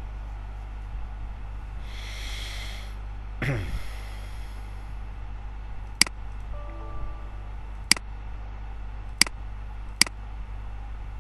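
Four sharp computer mouse clicks, spread over the second half, over a steady low hum. Earlier, a brief rustle and a falling swish.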